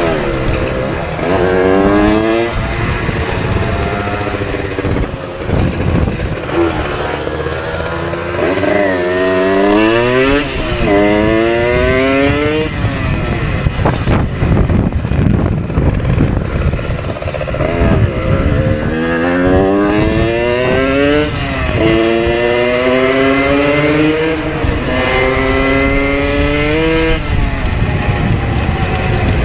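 Small moped engine accelerating up through the gears, its pitch climbing steadily and then falling back at each shift, several times over, with wind rushing on the microphone.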